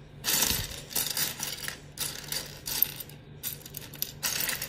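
Small plastic Lego bricks clicking and clattering as they are handled and shifted about, in a run of short, irregular rattles, the loudest about half a second in.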